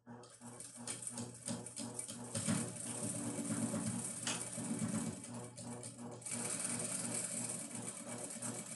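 Sewing machine stitching through layers of cotton fabric, slower at first with separate stitch ticks, then running faster and steadier from about two and a half seconds in, with a brief slowdown near six seconds.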